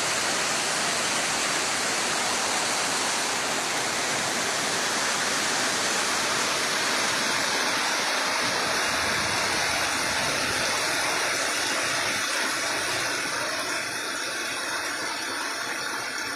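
Heavy rain pouring down in a steady dense hiss, easing slightly near the end.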